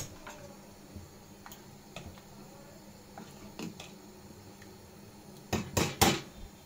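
Steel ladle stirring curry in an aluminium pressure cooker: faint scrapes and taps, then a few loud metal clanks near the end.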